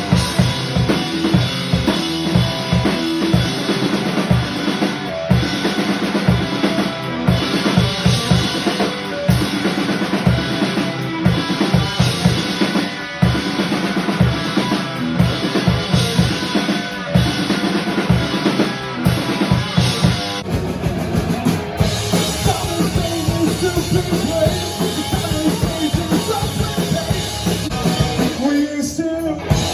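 Rock band playing live, with the drum kit loudest: fast, steady bass drum and snare hits under the rest of the band.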